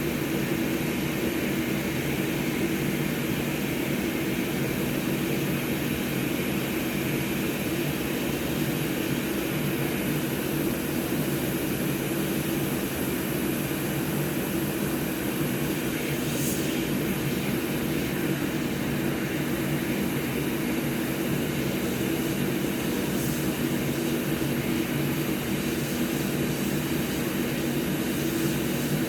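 Hot air rework station blowing steadily: a fan hum over a broad airy hiss, heating the solder joints of an Xbox Series X HDMI port to melt them so the port can come out.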